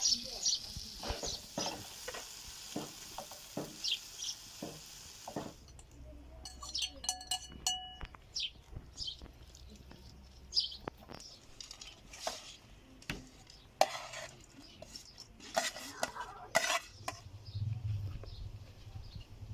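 Cooking utensils clinking and scraping against pots and dishes: a scattered series of short knocks and clinks, a few of them ringing briefly.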